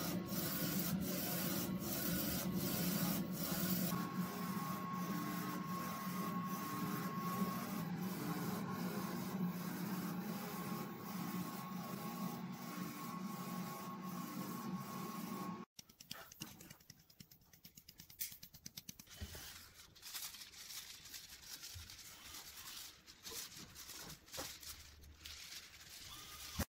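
A3 DTF printer running, its print head carriage moving back and forth with a steady hum, a held whine and regular clicks. About sixteen seconds in it cuts off abruptly to quieter rustling and light tapping as the printed film is handled over a tray of adhesive powder.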